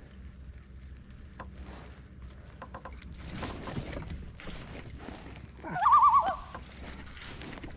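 A loud, brief animal call about six seconds in, its pitch warbling rapidly up and down, over faint clicks from a baitcasting rod and reel being cast and reeled in.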